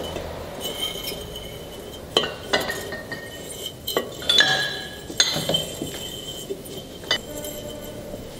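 Glass bottle clinking and ringing as it is turned by hand against the bricks and red-hot wire of a homemade hot-wire bottle cutter. There are several sharp, irregular taps, each followed by a short high ring.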